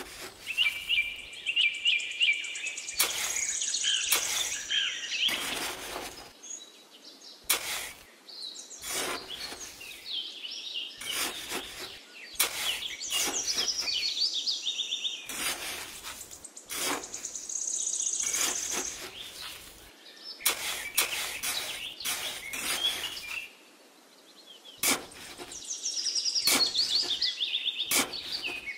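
A small wooden-handled trowel scrapes and crunches into damp sand in repeated short strokes, digging out clumps. Birds chirp and trill throughout, in several separate phrases.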